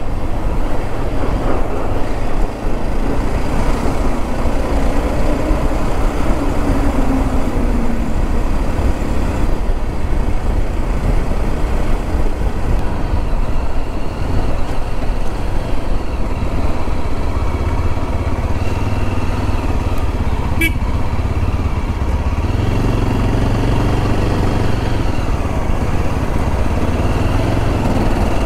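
Motorcycle on the move, its engine pitch climbing and falling as it accelerates and eases off, over a steady rush of road and wind noise.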